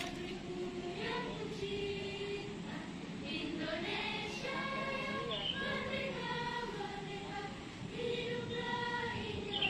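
A choir of young voices singing a slow song together, with long held notes.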